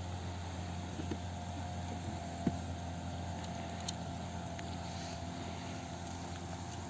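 Engine running steadily under way: an even low drone with a fainter higher tone above it, and a few light clicks.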